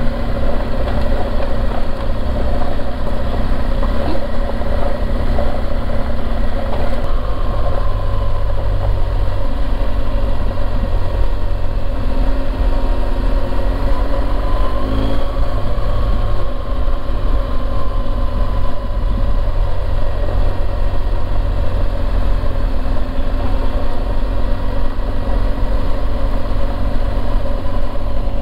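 BMW R1200GSA's boxer-twin engine running steadily while riding, under a heavy low rumble of wind on the microphone.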